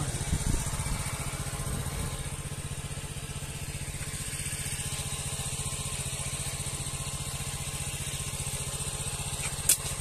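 A small engine running steadily, chugging at a fast, even rate at a constant level, with one sharp click near the end.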